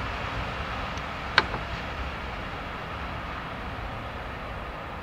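Freight train of open wagons rolling away on the rails, its running noise slowly fading. A single sharp metallic click rings out about a second and a half in.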